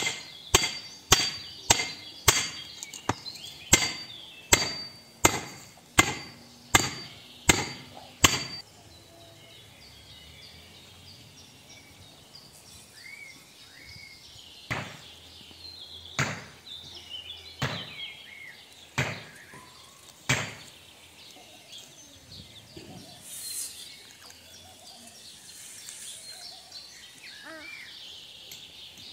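About a dozen sharp blows struck on wood, roughly two a second, for the first eight seconds; then birds chirping, with five slower knocks on wood a little over a second apart midway.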